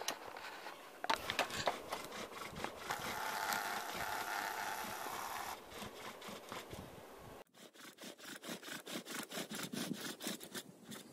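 Bow drill for friction fire-making: a wooden spindle spun by a bow against a wooden hearth board, giving a dry rubbing and scraping. From about seven seconds in it comes as quick back-and-forth strokes, about three a second.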